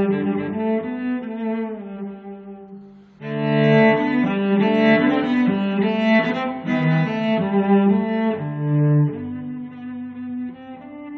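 Instrumental background music of long held notes; it fades briefly about a quarter of the way in, then comes back louder.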